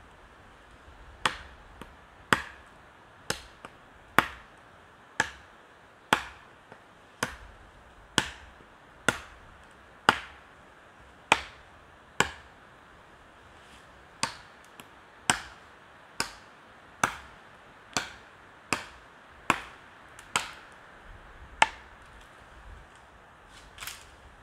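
Steady series of sharp blows from a hand tool, about one a second, each with a short ring-out; around twenty strikes, with a brief pause about halfway through.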